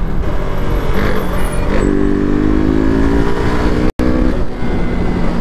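KTM RC 200's single-cylinder engine running under way, with heavy wind and road rush. Its pitch climbs steadily through the middle as the bike accelerates, then the sound breaks off for an instant at an edit and carries on steadily.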